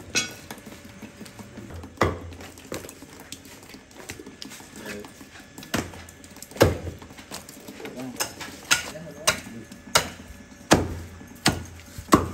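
Meat cleaver chopping goat carcasses on a wooden log chopping block: about ten sharp chops, irregularly spaced and coming closer together in the second half.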